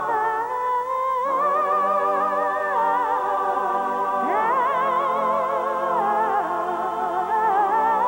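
Background music: several sustained tones held together, wavering with heavy vibrato, shifting to new notes about a second in and gliding upward about four seconds in.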